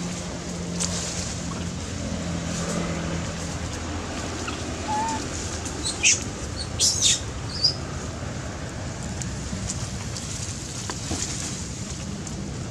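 Steady outdoor background noise with a few short, high-pitched chirps clustered about six to eight seconds in.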